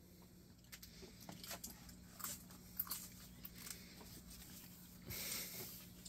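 Children handling crunchy puffed snacks: scattered small clicks and crunches, and a longer crinkle of the plastic snack packet about five seconds in.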